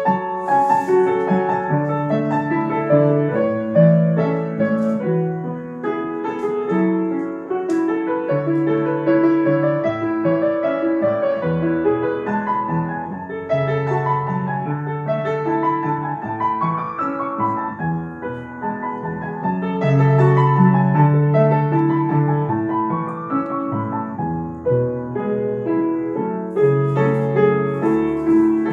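Kawai KL90RB upright piano being played: a flowing melody in the middle register over low notes held for a second or two each.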